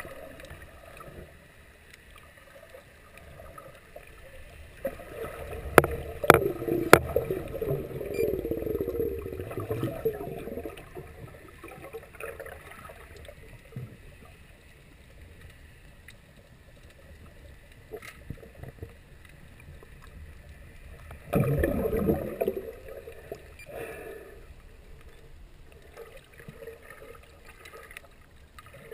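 Water sloshing and gurgling around a camera held just below the sea surface. Two louder surges of churning water come through, one about five seconds in with a few sharp clicks, and another about three quarters of the way through.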